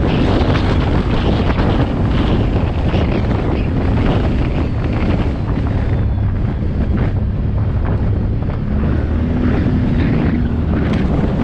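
ATV engine running steadily while riding, its low drone buried under heavy wind buffeting on the microphone.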